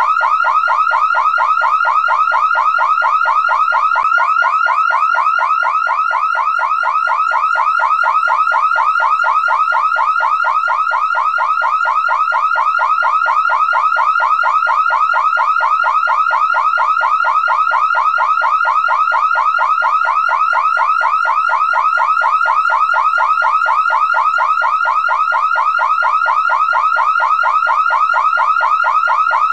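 Car alarm siren sounding continuously and loudly: a fast warble of rising sweeps repeating several times a second, never changing.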